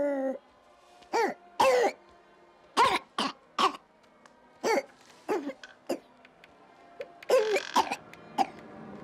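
A boy making a string of short, cough-like vocal noises and grunts, about a dozen of them at irregular intervals, with a tighter cluster a little past seven seconds in.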